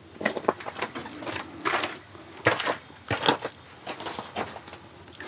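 Irregular clicks, knocks and brief crunching scrapes of handling while a crappie is reeled up through a hole in the ice, with the sharpest knocks about two and a half and three seconds in.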